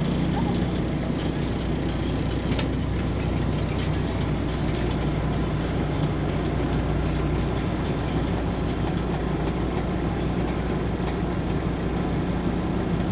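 Inside a LiAZ 5292.22 city bus standing still, its diesel engine idling with a steady low hum, and a couple of faint clicks about two and a half seconds in.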